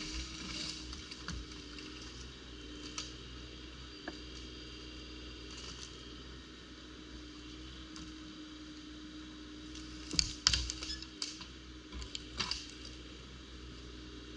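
Bobcat E35 mini excavator's diesel engine running with a steady hum while the arm lifts and balances a long pine log. Scattered sharp clicks and cracks, the loudest cluster about ten to twelve seconds in.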